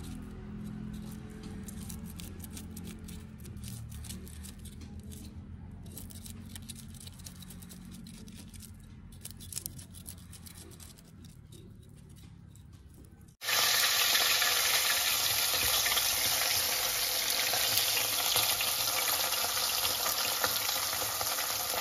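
A knife scraping scales off small fish in a steel bowl of water, in many quick strokes. About thirteen seconds in it cuts suddenly to a whole fish sizzling loudly and steadily as it fries in hot oil in a pan.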